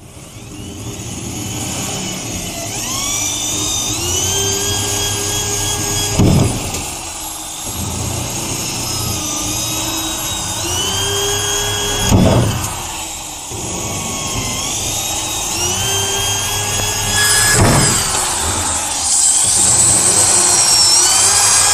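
Electric drill with a hole cutter boring holes through a fibreglass (FRP) water-tank panel: a steady motor whine whose pitch rises and falls with the load, broken three times, about six seconds apart, by a short loud grinding burst.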